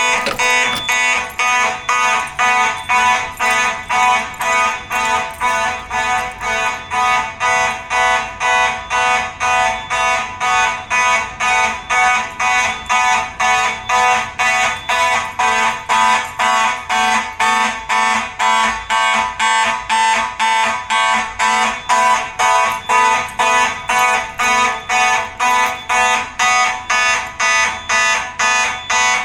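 Simplex fire alarm horns, set off by a pulled T-bar pull station on a Simplex 4004 panel, sounding in march-time coding: a loud, steady train of pulsed horn blasts, about two a second.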